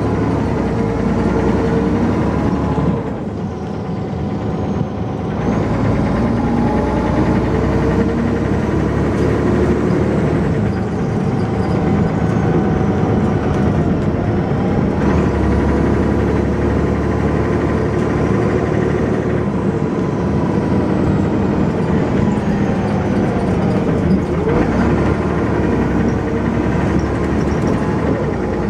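Dennis Arrow double-deck bus engine heard on board, pulling away and accelerating through the gears. Its pitch rises, then drops at each change, about 3, 10 and 24 seconds in. This bus is known for a knocking noise and a lot of engine thrash.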